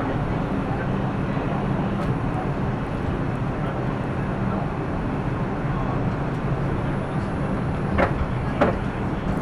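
Steady hum and rumble of a New York City subway car standing at a station, mixed with passenger and platform noise. Two sharp clacks near the end.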